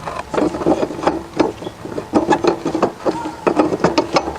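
Irregular metal clicks, knocks and scraping of the blade clamp and bolt being handled and fitted back onto a lawn mower's blade mount.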